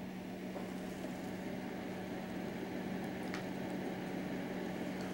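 Steady room tone: a low, even hum under a soft hiss, with one faint tick a little over three seconds in.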